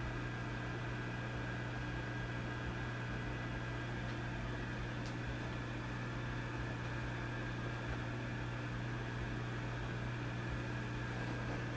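Vintage tube amplifier idling with a steady low mains hum under an even bed of hiss.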